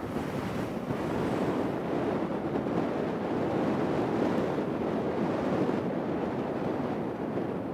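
Jet engines of an airliner taking off, heard from a distance as a steady rumbling noise that swells slightly towards the middle and eases a little near the end.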